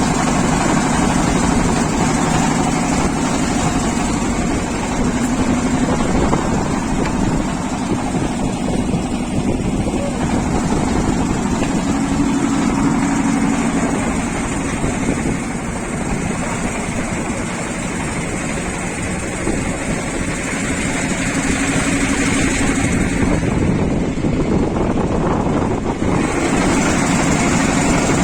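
A boat's engine running steadily, a low hum that drifts slightly in pitch.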